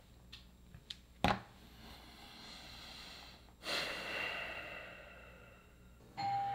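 A click about a second in, then a long breathy sigh, and near the end the first chime of a ding-dong doorbell, a steady tone that a lower one follows.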